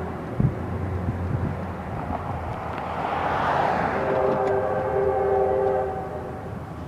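Diesel locomotive air horn on a CSX GP39-2 sounding one long chord of several steady tones for about two seconds, starting about four seconds in. It is warning of the train's approach to a grade crossing.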